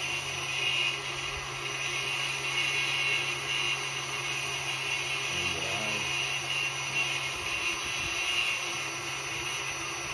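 Electric stand mixer's motor running steadily with a whine, driving its meat-grinder attachment to push venison sausage meat through the stuffing tube. The low hum drops out about seven seconds in while the whine continues.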